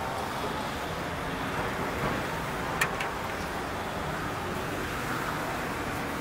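Steady street traffic noise, with a sharp click about three seconds in.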